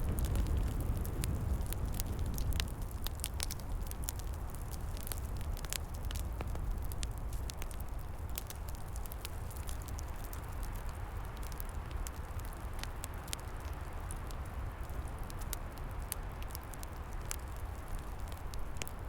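Wood fire crackling, with frequent sharp pops and snaps, over a steady low rumble of wind. The rumble is a little stronger in the first couple of seconds, then settles.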